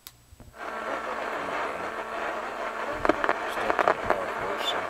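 A boombox's radio switched on with a click; about half a second in, a steady static hiss with a low hum comes up from its speakers.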